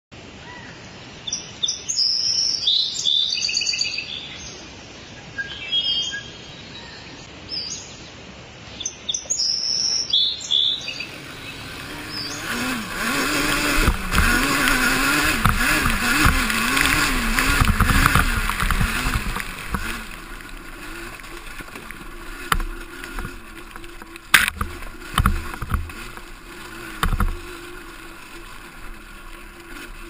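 Birds chirping for the first ten seconds or so. Then a Yamaha Banshee 350 quad's twin-cylinder two-stroke engine is revved up and down repeatedly and settles to a steadier, quieter run, with a couple of sharp knocks near the end.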